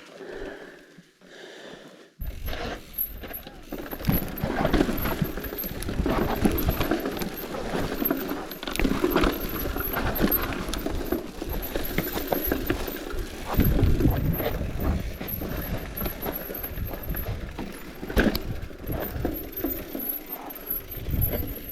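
Bicycle running over rough ground, its chain and frame rattling with many clicks and knocks, over a low rumble of wind on the microphone; it starts about two seconds in.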